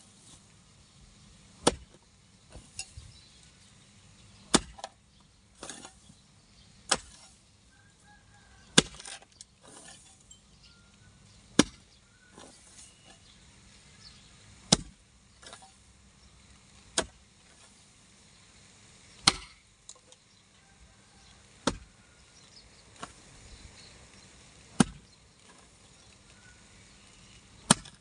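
Long-handled hoe chopping into dry ground: a sharp strike about every two to three seconds as the blade bites into the soil, with fainter knocks and scrapes between.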